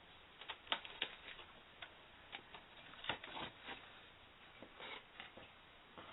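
Handling noises: a dozen or so light clicks and taps, coming irregularly, of a plastic twin-head emergency lamp being handled.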